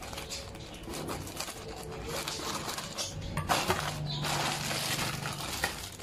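Plastic courier mailer crinkling and rustling as it is cut open with scissors and a cable in a plastic bag is pulled out, loudest in a long stretch of crackling about midway.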